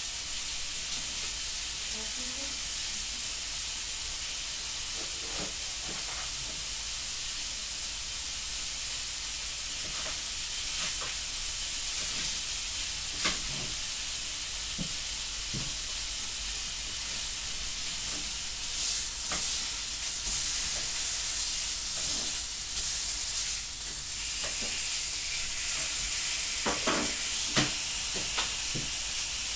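Food sizzling in a frying pan, a steady hiss, with scattered knocks and clinks of utensils that come more often in the second half.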